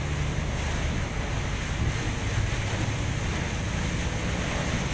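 Heavy rain heard from inside a moving Scania coach: a steady hiss of rain and spray over the low, even drone of the engine and tyres on the wet road.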